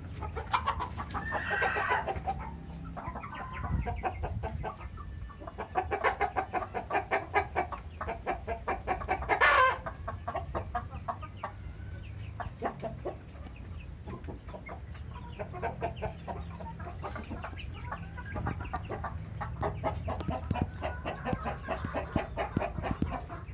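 A flock of chickens clucking and calling, many short calls overlapping, with one loud, longer call about nine and a half seconds in, over a steady low rumble.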